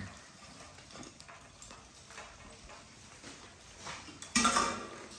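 A litter of American bully puppies moving about on wood-shaving bedding: light rustling and scratching of paws and shavings, with one louder, brief noise near the end.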